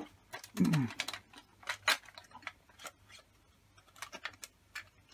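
Scattered light clicks and taps of PlayStation 4 console parts being handled and fitted during reassembly. They are loudest in the first two seconds and thin out after that.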